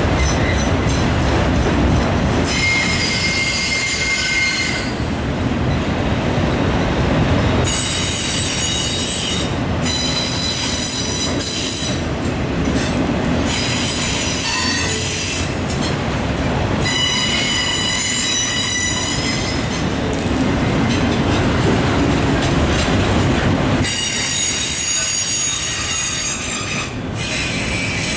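Autorack freight cars of a Norfolk Southern train rolling past: a steady rumble of wheels on rail, with high-pitched wheel squeal that comes and goes in stretches of a few seconds.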